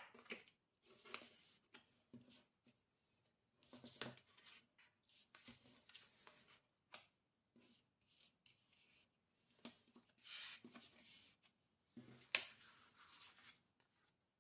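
Faint rustling and sliding of cards being moved and laid down on a table, with scattered small taps and one sharper tap about twelve seconds in.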